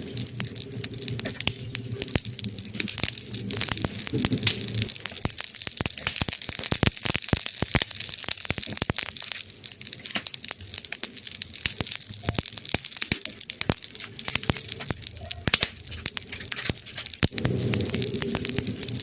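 Wood campfire crackling, with many sharp irregular pops and snaps of varying loudness over a steady hiss. A low rumble sits under it for the first few seconds, drops away, and comes back near the end.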